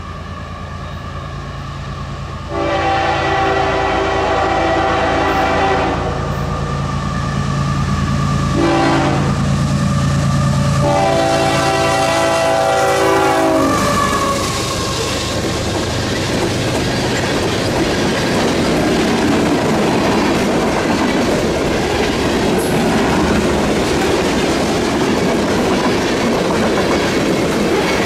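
Diesel freight locomotive approaching with its engine rumbling and its multi-tone air horn sounding three blasts: a long one, a short one and another long one, the grade-crossing signal. After the last blast the train passes close by, with the cars rumbling steadily and the wheels clicking over the rail joints.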